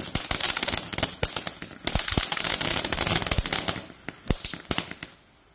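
Firework fountain spraying sparks: a dense, rapid run of crackling pops over a hiss, thinning to a few scattered pops about four seconds in and dying out near the end.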